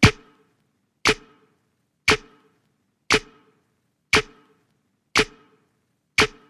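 Sparse stretch of electronic background music: a single sharp percussive hit with a short ringing tail, repeating steadily about once a second.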